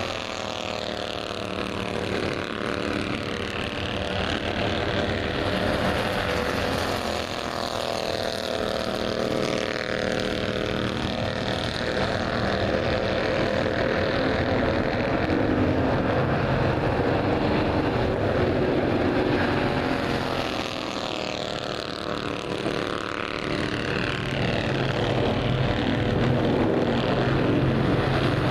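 Bandolero race car engine running at speed, its note rising and falling repeatedly as the car laps, with clear dips about a fifth of the way in and again about three-quarters of the way through.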